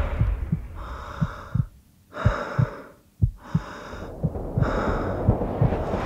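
A man breathing hard through an open mouth: four rasping breaths, each under a second, over quick low thumps about three a second.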